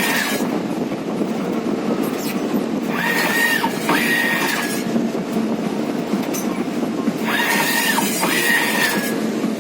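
Hybrid-grass pitch stitching machine running: a steady mechanical rumble with a pair of high squeals that comes back about every four and a half seconds, twice here, about three and seven seconds in.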